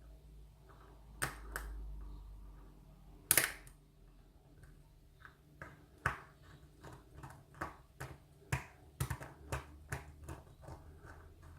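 Small metallic clicks and taps of tweezers working at the parts of a lock cylinder being taken apart: a few separate clicks, the loudest a little over three seconds in, then a quicker run of irregular clicks in the second half.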